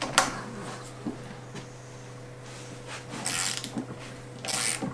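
Small torque wrench working the crank arm bolt of an e-bike: a few faint metal clicks, then two short rasping bursts from the tool about three and four and a half seconds in, over a steady low hum.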